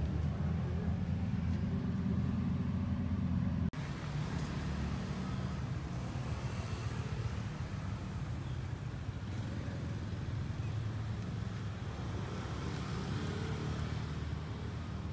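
Steady low outdoor background rumble, with no clear animal calls. About four seconds in it breaks off sharply and a slightly different rumble takes over.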